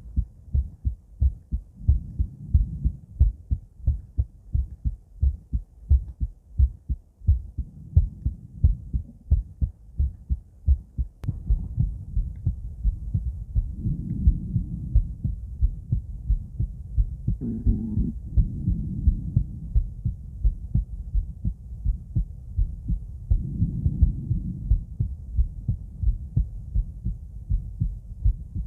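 A woman's heart heard through a stethoscope on the chest: a steady, regular lub-dub heartbeat, with a soft rushing noise swelling in every five seconds or so.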